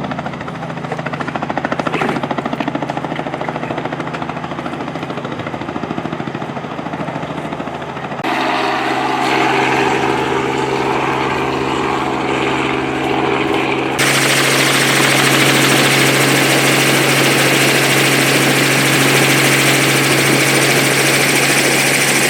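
Helicopter running steadily, with a low steady hum under a hiss. The sound shifts abruptly about eight seconds in and again about fourteen seconds in, when it becomes louder and hissier.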